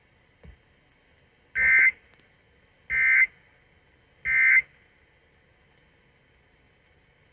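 Emergency Alert System end-of-message code: three short bursts of screechy digital data tones, about 1.3 s apart, played over AM radio through a car radio. They signal the end of the alert.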